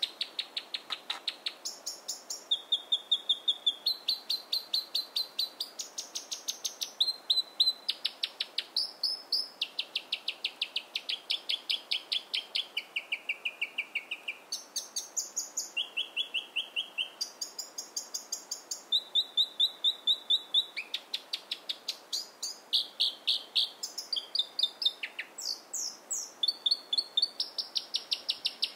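South Island robin singing a long, continuous song. Runs of rapidly repeated notes are each held at one pitch, and the song switches between higher and lower pitches every second or two.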